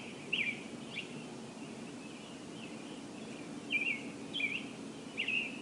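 Birds chirping: short, separate calls coming every second or so, over a faint steady background hum.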